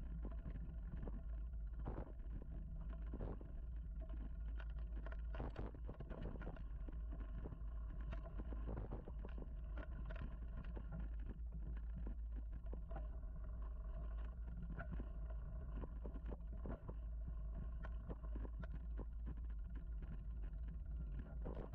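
Mountain bike ridden over a dirt singletrack, heard from the rider's mounted camera. A steady low rumble runs throughout, with frequent short rattles and knocks as the bike goes over bumps.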